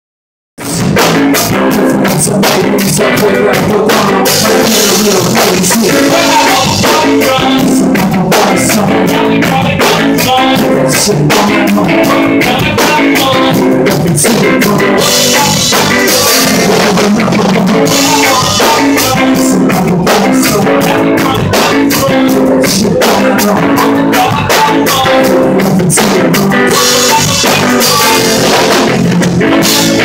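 A live band playing with a drum kit and guitar, recorded close and loud; the music cuts in suddenly about half a second in.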